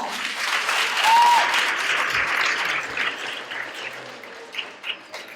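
An audience of schoolchildren applauding, strongest at the start and dying away over the last couple of seconds, with one brief high call about a second in.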